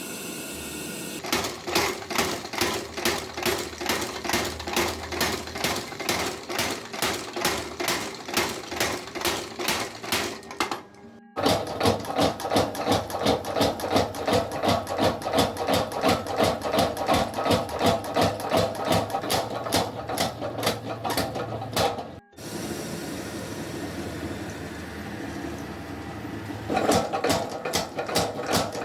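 Hammer blows forging hot steel in a fast, even rhythm of several strikes a second, in runs that stop abruptly twice. Near two-thirds of the way through there is a stretch of steadier noise with few blows before the rapid hammering starts again.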